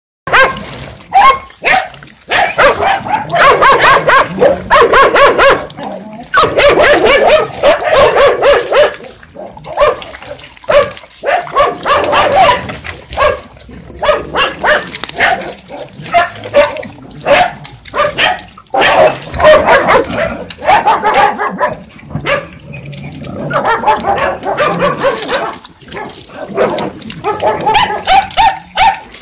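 Many dogs barking and yelping in quick, overlapping bursts while they jostle at shared food bowls.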